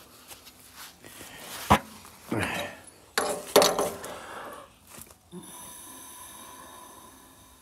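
A person blowing hard into a pickup's fuel tank filler neck, twice, to push fuel through the line toward the mechanical fuel pump. A sharp knock comes just before the blowing, and a faint steady hum follows near the end.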